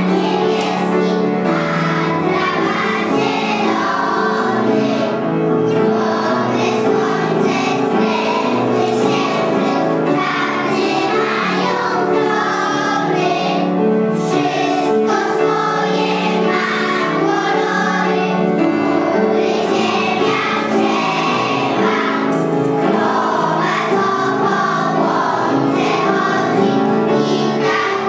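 A children's song: a group of young voices singing together over steady backing music.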